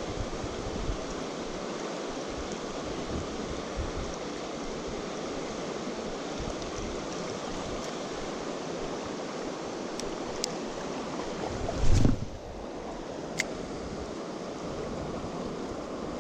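Fast river current rushing steadily, with a short loud low thump about twelve seconds in and a few faint clicks.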